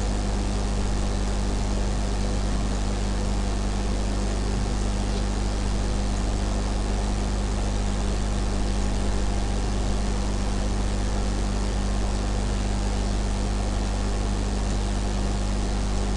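Steady low hum with an even hiss underneath, unchanging throughout: the background noise of the recording setup.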